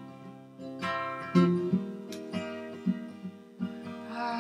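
Background music: a strummed acoustic guitar.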